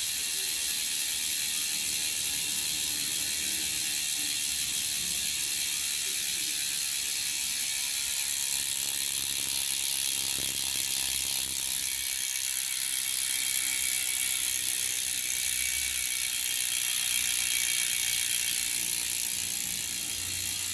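Vzan Concept bicycle wheel's freehub buzzing with a rapid, steady ratchet clicking as the wheel spins freely.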